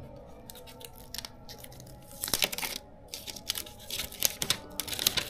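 Smartphone packaging being opened by hand: crinkling and tearing of wrapping with scattered small clicks. It is light at first and comes in louder short bursts after about two seconds.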